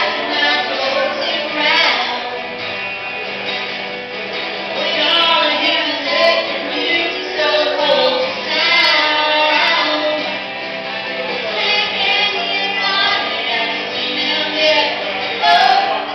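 Live band music: a woman singing over acoustic guitar.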